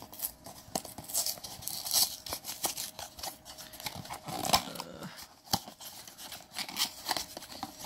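Packaging of a blind-box figure being torn open and rustled by hand: irregular crackling, tearing and clicking.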